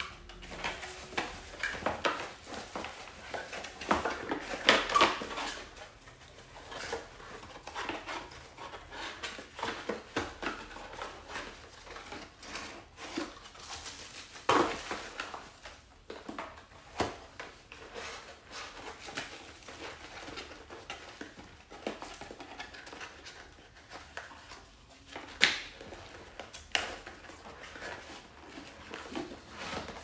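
Small hard objects being handled and set down: irregular clinks, clicks and knocks, with a cluster of louder knocks about five seconds in and a sharp one about 25 seconds in.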